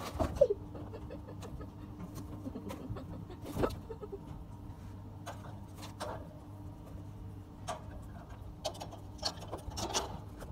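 A few short animal calls, the first falling in pitch, over a steady low hum, with scattered clicks and knocks.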